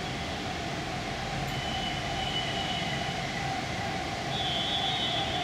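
Steady mechanical room hum: a continuous drone with a faint high whine above it.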